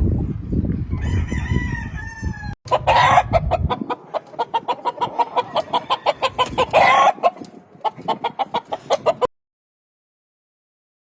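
Gamefowl roosters crowing, one crow falling in pitch about a second in, over rapid clucking at about four calls a second. The sound cuts off suddenly into silence near the end.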